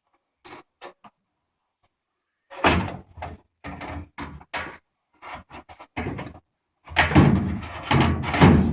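Sheet-metal parts of a Maytag Bravo dryer being handled during disassembly. A few light clicks, then from about two and a half seconds in, repeated bouts of knocking, scraping and rattling as panels and parts are shifted. The loudest bout comes near the end.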